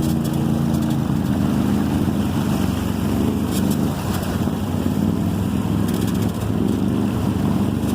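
Off-road vehicle engine running steadily under load, its pitch wavering slightly as it drives along a muddy trail.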